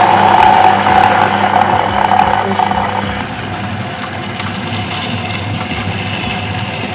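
Tabletop stone wet grinder running, its motor humming steadily while the rotating stone rollers grind soaked urad dal. Louder for the first three seconds or so, then settling into a quieter, even hum.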